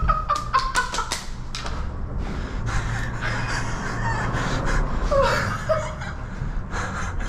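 Man laughing and breathing hard in excitement, with a run of quick clicks in the first second and a half and a short pitched vocal sound about five seconds in, over a steady low rumble.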